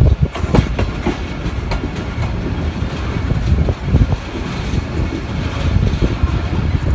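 Passenger train running at speed. Its coach wheels clatter over the rail joints in irregular knocks above a steady low rumble.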